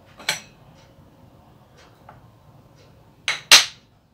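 Metal bowls and a metal plate clinking as food is served by hand. There is one sharp clink a moment in, then two more close together near the end, and the second of these is the loudest.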